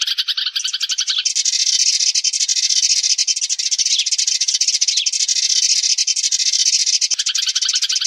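Sparrows chirping in a dense, rapid chatter, a flock-calling lure recording. About a second in the chatter turns higher and denser, and it drops back lower near the end.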